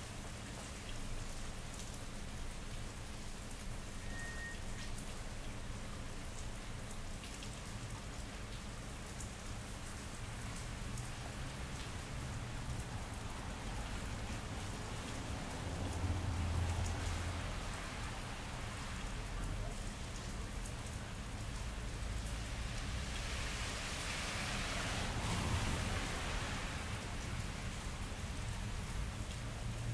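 Steady rain falling and dripping on wet pavement, with a low rumble about halfway through and a swelling rush of louder hiss a few seconds after.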